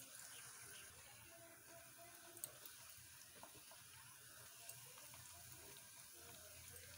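Faint sizzle of bread slices frying in warm oil in a kadhai, with a few light clicks as more slices are laid in.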